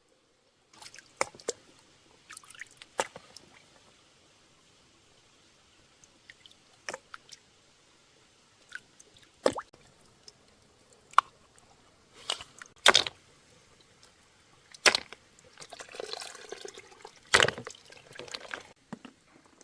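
Irregular water splashes and drips with sharp knocks, spaced unevenly, and a longer sloshing rush of water about sixteen seconds in.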